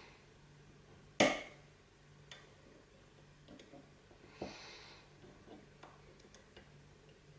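Metal picks clicking and ticking inside a U.S. Mail lever padlock as its levers are lifted, with one sharp click about a second in and smaller ticks after.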